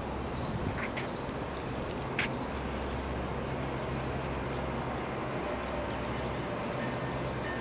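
Outdoor station ambience: a steady low hum under a few short bird chirps about one and two seconds in.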